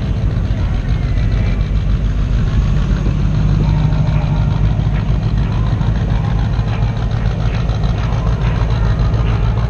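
Truck engine idling steadily, a low even rumble.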